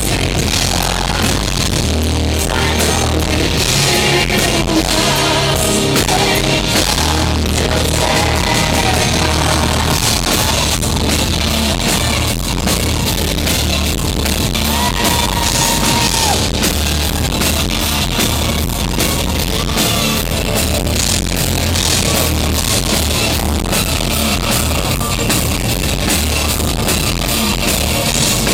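Symphonic metal band playing live at full volume, with drums, guitars and a held sung line partway through. It is recorded close to the stage, so the sound is loud and of very bad quality.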